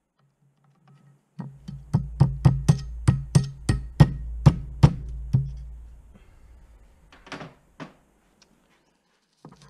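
Hammer tapping a hex key used as a drift punch, driving an old barrel pin out through a musket's wooden stock: about a dozen sharp taps over some four seconds, a few a second. Two brief scuffs follow near the end.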